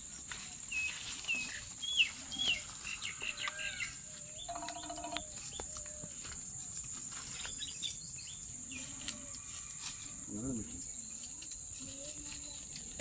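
Birds chirping, a run of short quick calls in the first few seconds, over a steady high-pitched insect drone, with a few faint lower calls later on.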